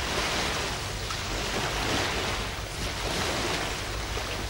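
Small waves lapping on a sandy river shore: a steady wash of water noise that swells and eases gently, with a low rumble underneath.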